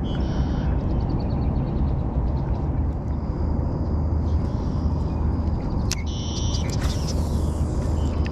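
Birds chirping and trilling in high, thin calls, with a short call a little past the middle, over a steady low rumble; a few faint clicks.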